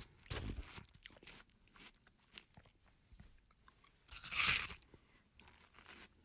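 A person biting into and chewing watermelon, with wet crunching bites. A strong bite comes just after the start and the loudest about four and a half seconds in, with softer chewing crunches between.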